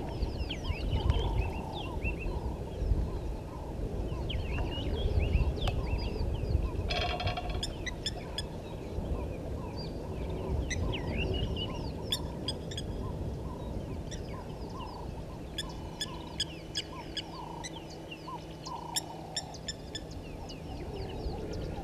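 Several wild birds calling over one another: many short high chirps and trills, with a run of repeated lower call notes. Under the birds is a low rumble, stronger in the first few seconds.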